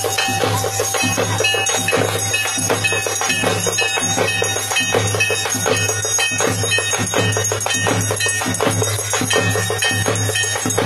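Loud, fast live drumming with bell-like jingling percussion, a steady driving rhythm of closely spaced strikes.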